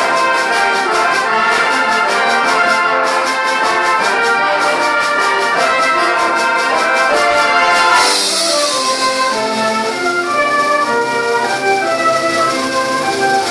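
Brass band playing in full: quick, evenly pulsed notes for about eight seconds, then the music broadens into held chords with a bright shimmering wash over them.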